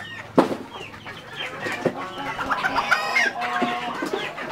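Several chickens clucking and calling over one another, with a sharp knock about half a second in.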